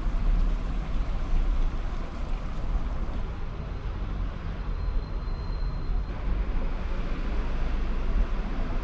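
Steady outdoor town ambience: a low rumble with an even hiss.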